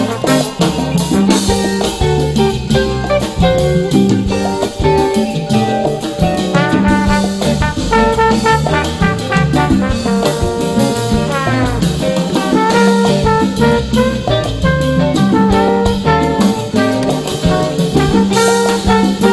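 Upbeat jazz background music with brass and a drum kit, with a quick falling run of notes a little after halfway.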